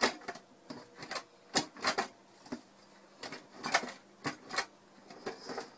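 Risen bread dough being punched down and pressed by hand in a stainless steel mixing bowl: a string of irregular knocks and clatters from the bowl, about two a second.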